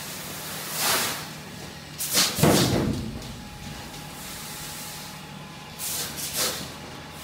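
Fire hose nozzle spraying water in three short bursts, the longest and loudest about two to three seconds in, over a steady background hiss.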